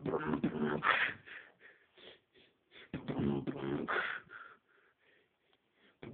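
A beatboxer's vocal imitation of turntable scratching. There are two voiced scratch phrases about three seconds apart, each lasting just over a second, with light mouth clicks between them.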